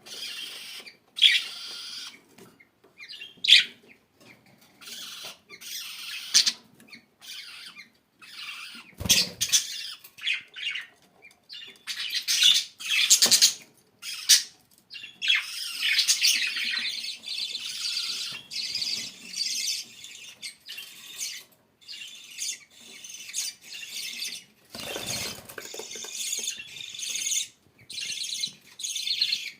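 Budgerigars chirping and chattering: quick high calls, separate at first, then a busier, near-continuous warbling chatter through the second half, with a brief low thump about nine seconds in.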